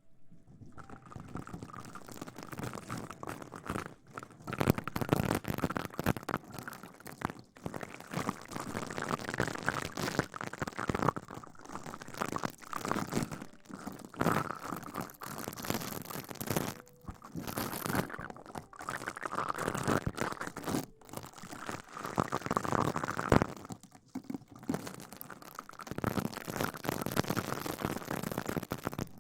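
Close-miked ASMR rustling and scrubbing against the microphone, in repeated crackly strokes with short pauses between them.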